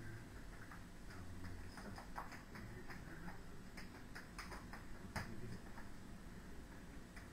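Juggling balls slapping into the hands as they are caught and thrown: an irregular run of soft clicks, a few a second, the sharpest about five seconds in.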